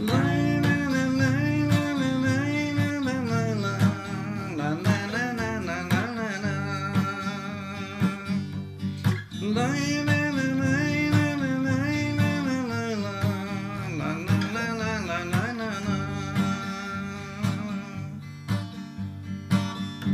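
Steel-string acoustic guitar strummed steadily, with a man's voice carrying a wordless melody over it in long phrases.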